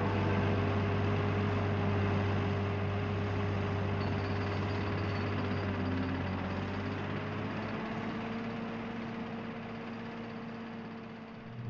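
Low, sustained droning soundtrack of a few held tones, one slowly rising in pitch, fading out gradually toward the end.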